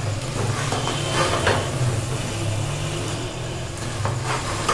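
A metal spoon stirring and scraping masala and chana dal frying in an aluminium pot, with a few short scrapes against the pot. Under it runs a steady low hum.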